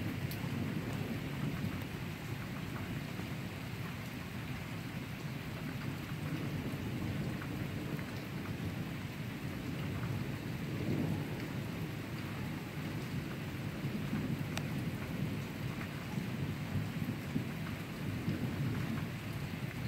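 Rain falling steadily, with a low rolling rumble of thunder beneath it that swells a little about halfway through.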